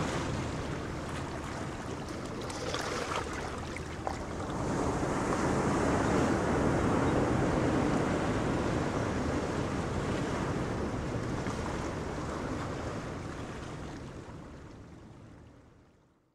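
Wind buffeting the microphone over choppy sea water. A low, steady drone of a fishing boat's engine is heard under it in the first few seconds. The sound fades out near the end.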